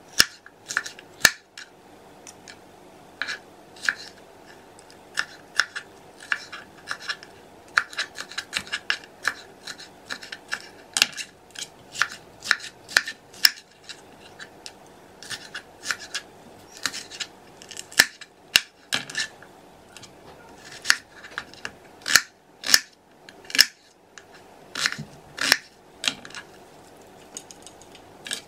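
Kitchen knife chopping bell peppers on a cutting board: irregular sharp knocks of the blade striking the board, some in quick runs of several strokes.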